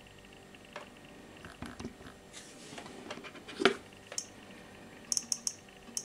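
Handling noise from smartphones being picked up and tapped: scattered clicks and rubs, one sharp knock about midway, and a quick run of four short high clicks near the end.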